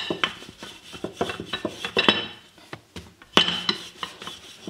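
Wooden rolling pin rolling out a ball of roti dough on a granite countertop: irregular knocks and clacks of the pin against the stone, with a rubbing sound as it rolls, the loudest knocks about two seconds in and again a little after three.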